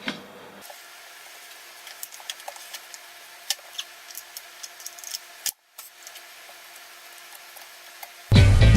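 Scattered light clicks and taps of flat-pack furniture parts being handled and fitted together in a small room. Loud music with drums and guitar starts near the end.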